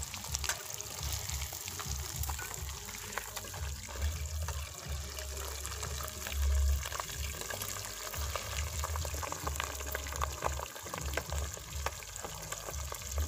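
Fish frying in hot oil, a steady sizzle with many small crackles and pops. A low rumble comes and goes underneath, strongest about six and a half seconds in.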